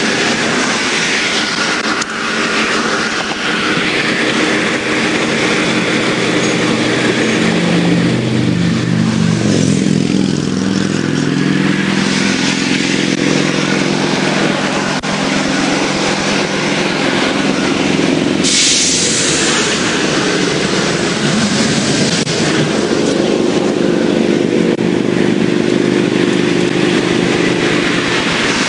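Heavy vehicle engine idling close by with highway traffic noise; the engine note shifts and rises about eight to ten seconds in. A short hiss lasting about a second comes about two-thirds of the way through.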